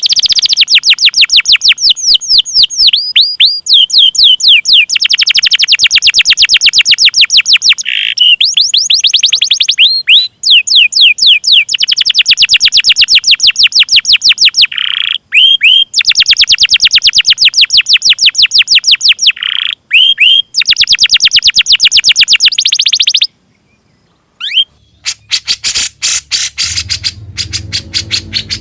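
Songbird tutor (masteran) recording: long runs of fast, sharply repeated high chirps, about ten a second, broken by short pauses and a few lower whistled notes. Near the end it stops for about a second, then a different rapid chirping starts over a low hum.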